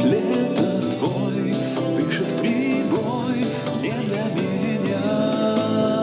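A recorded song playing: a band backing with guitar and a steady beat, with a male voice singing over it, the vocal processed with studio effects.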